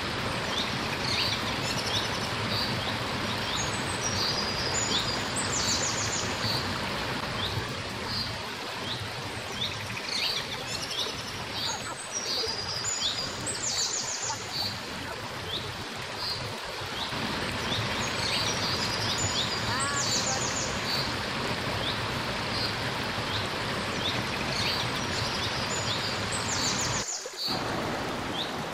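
A shallow rocky stream running steadily over stones, with birds calling over it in short high chirps and quick trills, repeated again and again.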